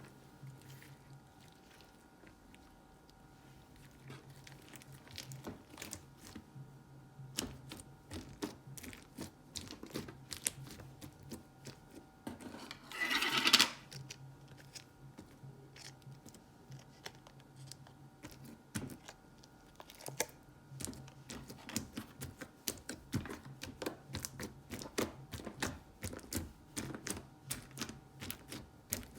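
Slime being squeezed and poked by hand: irregular sticky clicks and pops, with one louder noisy burst lasting about a second near the middle. A faint steady hum runs underneath.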